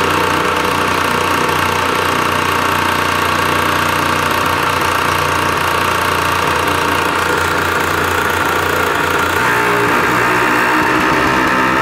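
Aprilia RS125's 125 cc two-stroke single-cylinder engine running at a steady speed on a motorcycle roller dyno, driving the rear wheel on the drum. About nine and a half seconds in, the engine note shifts slightly and then holds steady again.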